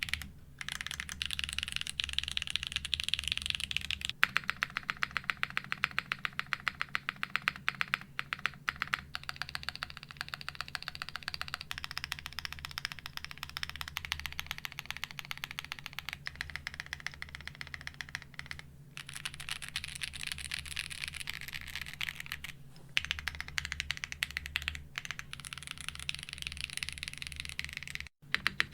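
Custom mechanical keyboards being typed on in rapid runs of key clicks. First the Geonworks Glare TKL (POM plate, lubed tactile switches, lubed linear switches on the modifiers), then, after a brief break about four seconds in, the Geonworks F1-8X 722.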